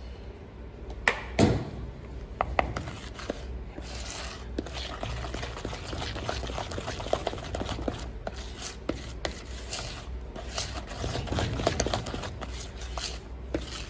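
Wooden spoon beating cake batter in a plastic mixing bowl, as flour is beaten into creamed butter, sugar and egg. Two sharp knocks about a second in, then a steady rapid run of scraping and small clicks of the spoon against the bowl.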